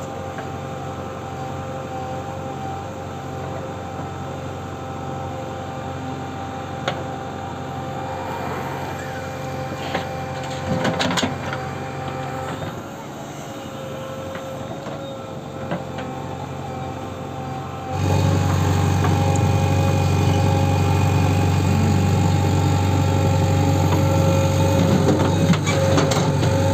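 JCB 3DX backhoe loader's diesel engine running steadily as the backhoe digs and loads soil, with a steady whine over the engine and a few clanks around the middle. About two-thirds in the sound turns suddenly louder and closer.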